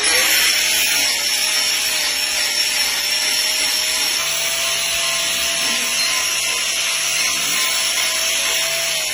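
Handheld power trimming tool, which the video calls a chainsaw, running continuously as it cuts and shapes a cow's hoof horn, with a steady motor whine under the grinding noise.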